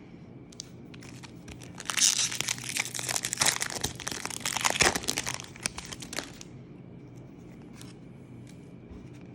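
Foil wrapper of a Pokémon booster pack being crinkled and torn open, a dense crackling from about two seconds in until past six seconds, then only faint handling.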